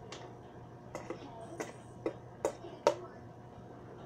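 A run of about six short, sharp clicks and taps over about three seconds, from a small plastic bottle being handled.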